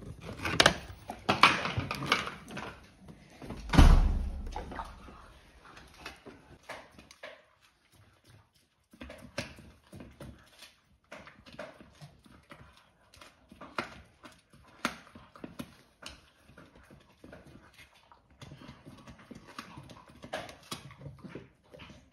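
A Staffordshire bull terrier gnawing and crunching a large, hard dried chew, with irregular sharp clicks and crackles. In the first few seconds come knocks and one heavy thump about four seconds in.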